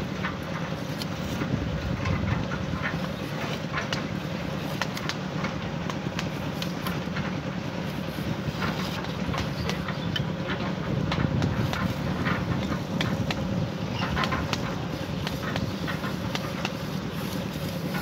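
Mason's trowel and a hoe scraping and scooping sand while levelling the bottom of a beam trench: short scratchy scrapes every second or so, over a steady low rumble.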